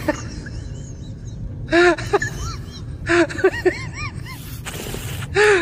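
Husky puppies whining and yipping while they tug on a rope leash: a string of short calls that rise and fall in pitch, with scuffling noise in between.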